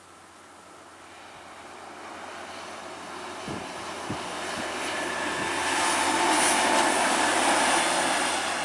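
Mermec TIPO4 track-measuring vehicle running past on the rails: the rumble of its wheels and running gear grows steadily louder as it approaches and is loudest near the end. A few sharp wheel clicks come a few seconds in.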